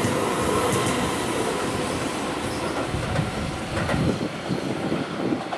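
Keihan 8000 series electric train running through the station, a steady rumble of wheels on rails with some clatter, getting somewhat quieter over the last second or so.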